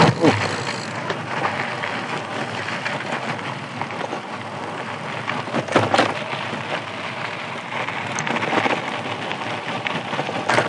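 Tyres of an electric mountain bike rolling over a rough dirt and gravel road, a steady crunching rush. A few sharp knocks sound through it, the loudest about six seconds in.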